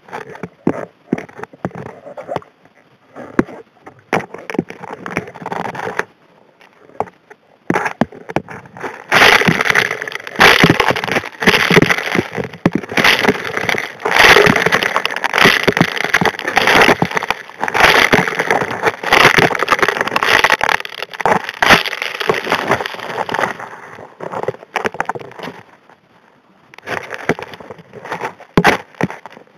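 Gravel and small rocks clattering and knocking against the nozzle of a Model 625 HD P hand suction dredge as they are sucked in, heard underwater. Scattered knocks at first, then about nine seconds in a dense, continuous rattle of stones that eases briefly near the end before picking up again.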